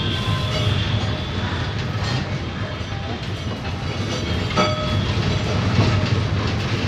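Electric tram rolling slowly along curved rails, heard from inside the coach: a steady low rumble with wheel clatter, and a sharp knock about four and a half seconds in.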